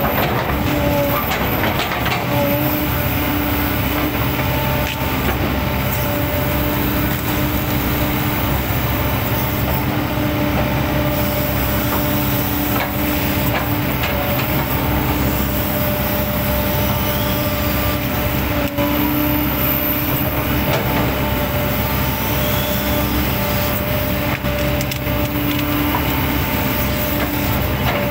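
A 20-tonne class hydraulic excavator working at close range: the diesel engine runs steadily under load with a hydraulic whine that comes and goes, while the bucket chops and crunches through felled oil palm trunks, with a few sharp knocks of the bucket on wood.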